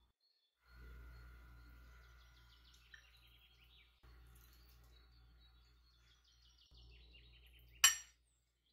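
Faint bird chirping in repeated descending phrases over a low steady hum, broken by a few abrupt cuts. Near the end comes a single sharp clink, the loudest sound.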